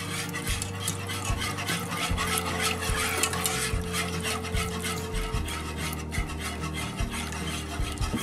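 Wire whisk beating a flour-thickened sauce in a nonstick skillet, in quick repeated strokes that scrape against the pan.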